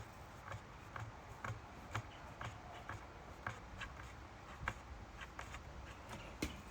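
Faint, light clicks and taps, roughly two a second and irregular, over a quiet steady background.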